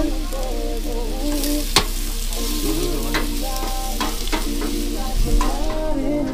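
Food frying and sizzling in a pan over a high flame while it is stirred, with a sharp clink of the utensil against the pan a little under two seconds in.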